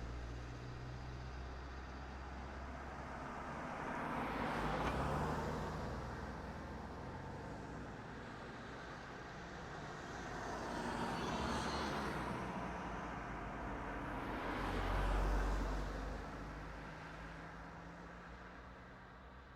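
Cars driving past, three pass-bys each swelling up and fading away over a low engine hum. The third pass is the loudest, with the deepest rumble. The traffic fades out near the end.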